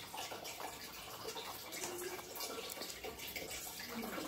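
Paintbrush dabbing and scrubbing dark paint onto a canvas, faint scratchy strokes over a steady background hiss.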